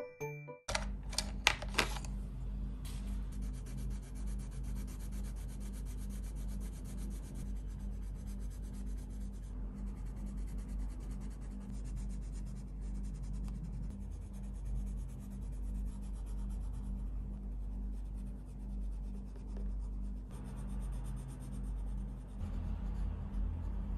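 Pen and coloured-pencil tips scratching and rubbing on journal paper as small drawings are sketched and shaded in, an even scratchy sound over a steady low hum. A few bright chime-like strikes ring out in the first two seconds.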